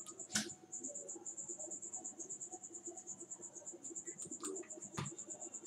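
Faint insect chirping: a high pulse repeating steadily about nine times a second, with two soft clicks, one about half a second in and one near the end.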